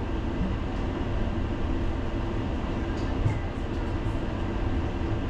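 Tram running on its rails, a steady low rumble with a faint click about three seconds in.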